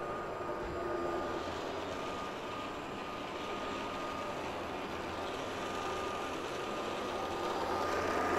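Steady background din of a large exhibition hall, with a thin steady high tone running through it.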